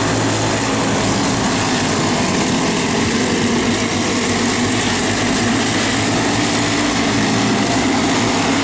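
Racing engines running steadily at speed, a continuous loud drone.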